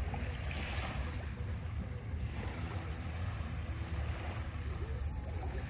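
Wind buffeting the microphone as a steady low rumble, with small waves lapping at the shoreline.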